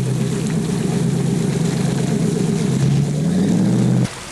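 Boat outboard motor running at a steady speed, its pitch rising as it is throttled up about three seconds in, then cutting off suddenly near the end.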